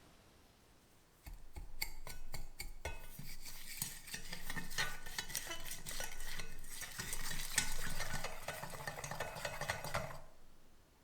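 A utensil stirring a mixture in a bowl, scraping and clinking against the sides. A few separate taps start about a second in, then continuous stirring runs until it stops about a second before the end.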